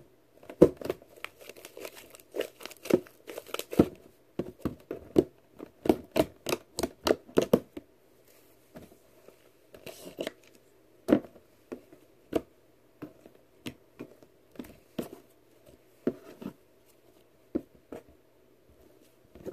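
Thick blue slime being squeezed, stretched and poked by hand, giving sharp popping and crackling clicks as air pockets burst in it; the pops come thick and fast for about the first half, then thin out to a scattered few.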